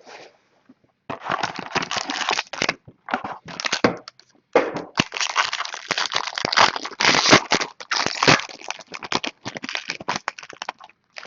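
Plastic wrapping on a sealed trading card box crinkling and tearing as it is ripped open, in irregular crackling bursts with short pauses.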